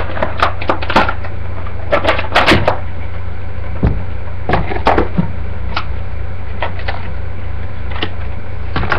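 Plastic toy morpher and its packaging being handled: scattered clicks and taps, bunched in the first half and sparser later, over a steady low electrical hum.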